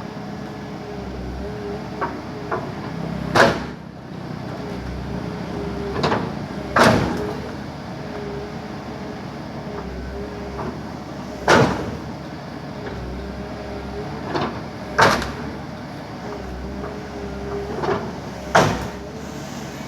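Backhoe's diesel engine running steadily while its bucket breaks up a tree, with a loud sharp crack or crunch about every three and a half seconds and lighter knocks between.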